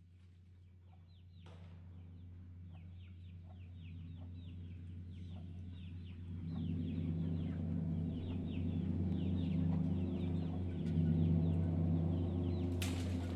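Chickens clucking, with many short high falling chirps over a steady low drone, fading in and growing louder. There is a sharp click near the end.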